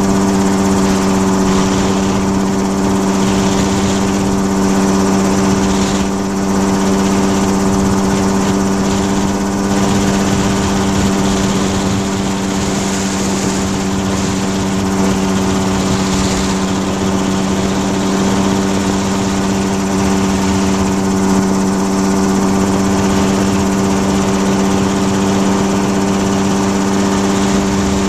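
Small propeller engine of the camera-carrying aircraft running steadily at a constant pitch, close to the microphone, with a hiss of airflow over it.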